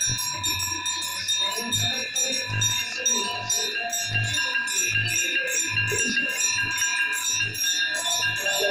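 Aarti bells ringing fast and without a break, many strikes a second blending into one continuous clangour. Under them, a low drum beat falls about once every 0.8 seconds.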